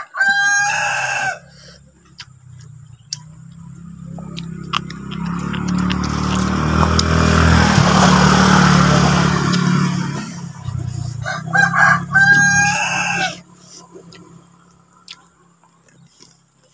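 Rooster crowing twice, at the start and again about eleven seconds in. Between the crows a louder rushing noise with a low hum swells and fades over several seconds.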